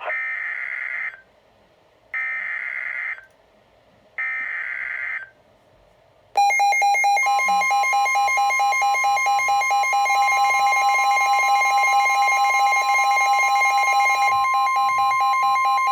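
NOAA Weather Radio SAME data header: three warbling data bursts, each about a second long and about two seconds apart. From about six seconds in comes a loud, steady alert tone, with a second, higher tone joining a second later, signalling that a new severe thunderstorm warning follows.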